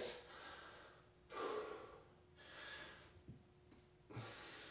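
A man breathing hard from exertion while holding and pulsing a half squat: four heavy breaths, about one every second and a half.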